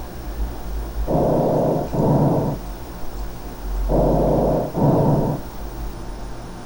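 Recorded lung auscultation of harsh breath sounds (respiración ruda): two breaths, each a rough, grainy inhalation running straight into exhalation, about a second and a half long. The harshness is the sign of turbulent airflow over irregular or congested bronchiolar mucosa, abnormal when heard at the lung apices or bases.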